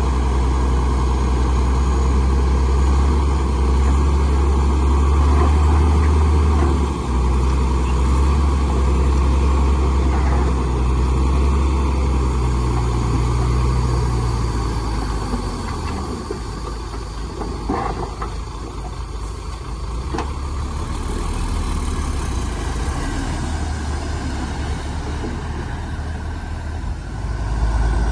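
Heavy diesel earthmoving machinery running with a deep, steady engine drone. The drone eases off about halfway through and swells again near the end, with a brief clank about two-thirds of the way in.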